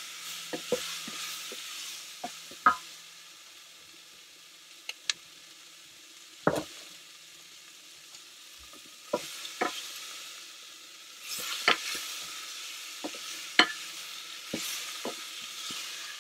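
Stew meat and onions sizzling in the stainless inner pot of a 3-quart Instant Pot on its sauté setting, stirred with a wooden spoon that knocks and scrapes against the pot now and then. The sizzle dies down for a few seconds midway and picks up again later.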